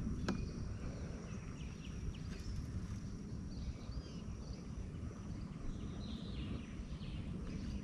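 Small birds chirping faintly over a steady low rumble of wind on the microphone, with one sharp click just after the start.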